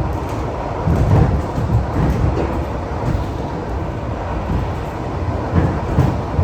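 ED4M electric multiple unit running along the track: a steady rumble of wheels and running gear, with heavier swells about a second in and again near the end.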